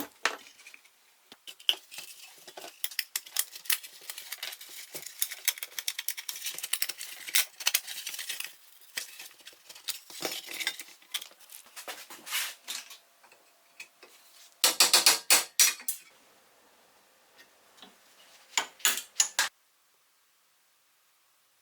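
Small steel parts of an old Soviet toy bulldozer clinking and clattering as it is taken apart, with a quick run of sharp metal knocks about fifteen seconds in and another near the end.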